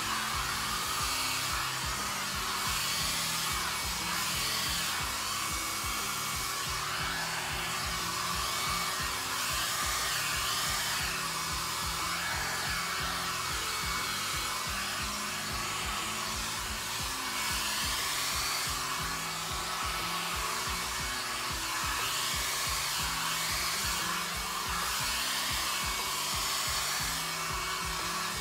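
Small handheld hair dryer blowing steadily, its rush of air swelling and fading a little as it is moved about, blowing wet acrylic paint out into blooms. Background music plays underneath.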